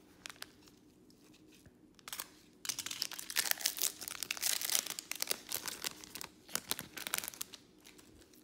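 Foil wrapper of a Panini Select trading card pack being torn open and crinkled, a run of crackling and tearing from about two seconds in until near the end.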